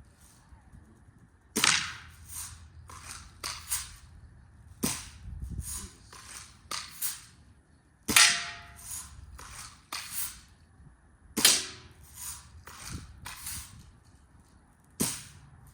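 Daisy Red Ryder lever-action BB gun firing repeatedly: about six sharp shots, a few seconds apart, with smaller clicks and knocks between them.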